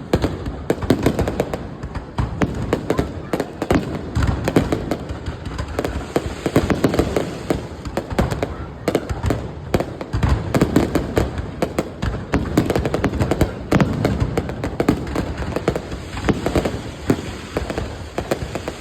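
Fireworks going off in a fast, unbroken barrage of bangs and crackling, many shots a second, with no pause.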